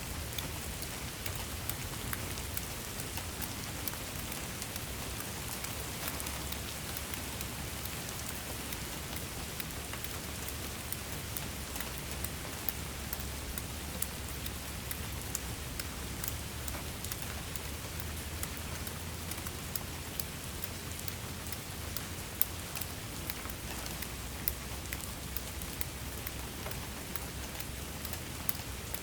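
Steady rain falling, with many individual drops ticking sharply on a surface over a constant hiss and a low rumble.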